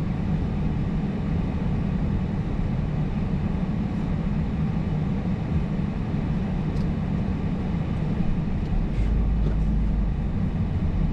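Car driving slowly, heard from inside its cabin: a steady engine hum with tyre noise, growing deeper and heavier about nine seconds in.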